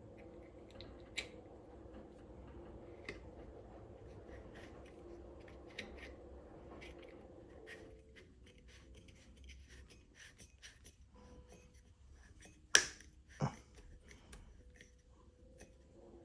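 Small clicks and taps of bicycle bell parts being handled and fitted together by hand, with two sharp, loud snaps close together about two-thirds of the way through. A low steady hum underneath stops about halfway.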